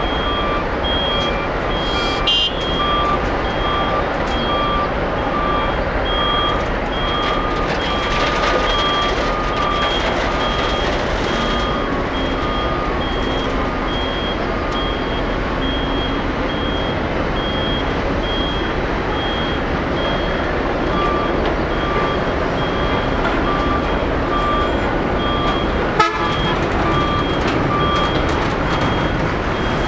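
Construction vehicles' reversing alarms beeping over and over, two alarms at different pitches, over a steady background rumble of engines. One sharp click near the end.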